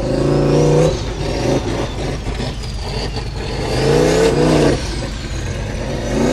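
Off-road racing buggy's engine revving hard in bursts as it claws its way over a steep dirt hill, with loud surges at the start, a rising rev about four seconds in, and another surge at the end.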